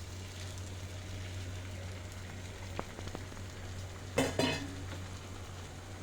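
Eggs frying in hot oil in a pan, a steady sizzle, with a few light clicks of a utensil around the middle and a brief louder burst about four seconds in.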